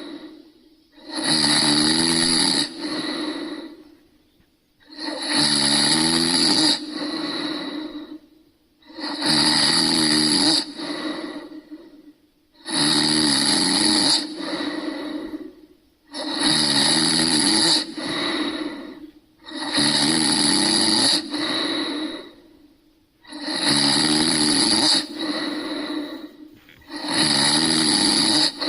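Person snoring loudly and regularly, eight snores at an even pace of about one every three and a half seconds. Each snore has a louder first half and a softer tail. The sound starts and stops abruptly, as a recording played back would.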